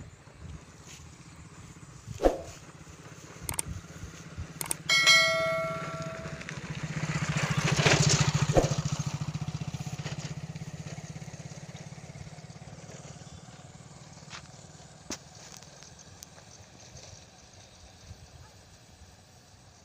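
A motorcycle engine passing by, growing louder to a peak about eight seconds in and then slowly fading away. A few sharp knocks, and a single bell-like metallic ding about five seconds in.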